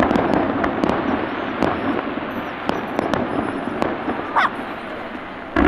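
Fireworks display: a dense, continuous crackle of bursting shells with many sharp pops, and a sudden louder burst just before the end.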